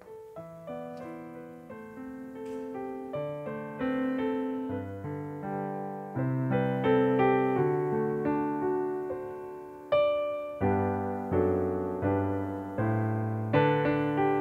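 Piano playing a slow piece of struck, ringing chords and melody. It starts softly and grows louder over the first several seconds, with a strong chord about ten seconds in.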